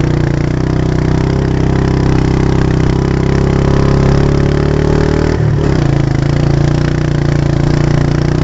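Quad bike engine running steadily while towing a knee boarder on a rope, its pitch creeping slowly upward. About five seconds in the revs drop briefly, then pick up again.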